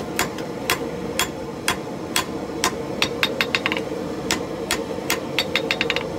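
Hand hammer striking a hot forge weld on a steel anvil, about two blows a second, with two runs of quick light taps in between. This is the second welding heat, joining a railroad spike handle to a 1075 steel blade and struck harder than the first. A steady hum runs underneath.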